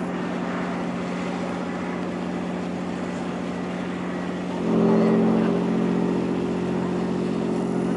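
Fishing vessel Northwestern's diesel engine running with a steady low drone as the boat moves through the lock. About halfway through, a louder steady-pitched tone sets in and holds.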